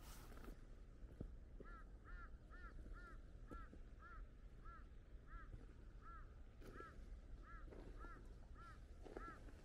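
A bird giving a faint honking call over and over, about twice a second, over near silence.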